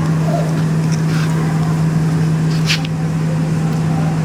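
Steady low machine hum holding one pitch, with a short sharp click about two-thirds of the way through.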